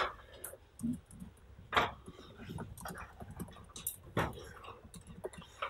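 Scattered short clicks and rustles, a few seconds apart, over faint room noise.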